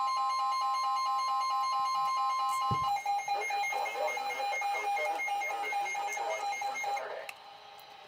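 Electronic beeping in a repeating, alarm-like pattern of steady tones. One long high tone stops about three seconds in, and the beeping cuts off suddenly about seven seconds in.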